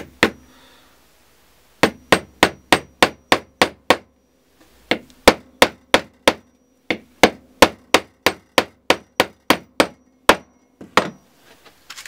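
Hammer tapping a small nail into a timber offcut: quick runs of sharp taps, about four a second, with short pauses between runs.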